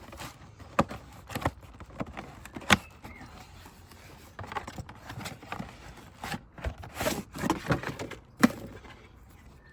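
Irregular clicks, knocks and clinks of the nested aluminium pots and parts of a Trangia T27 cook set being handled and taken apart, with two sharper knocks, one a little under three seconds in and one near the end.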